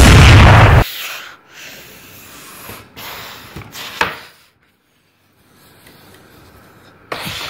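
A loud, distorted boom-like blast cuts off under a second in. Quiet rubbing and scraping follow as toy vehicles are moved about on a tiled floor, with a sharp knock about four seconds in and a sudden louder scrape near the end.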